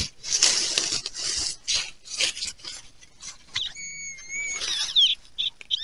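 Dry leaf litter rustling and soil scraped with a hand digger, in a string of short, noisy scrapes. About two-thirds of the way through, a high, wavering tone with overtones comes in for about a second and a half.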